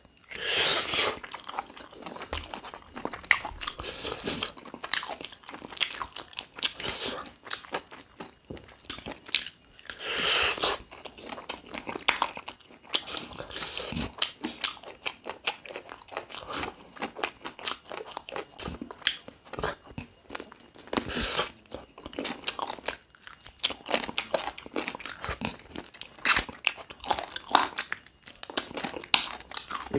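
A person eating a chicken drumstick close to the microphone: steady chewing and biting with many small wet mouth clicks and crunches. There are a couple of longer hissing noises, about a second in and again around ten seconds in.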